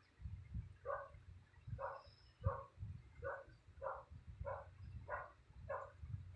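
A dog barking repeatedly at a steady pace, about one and a half barks a second, with an irregular low rumble underneath.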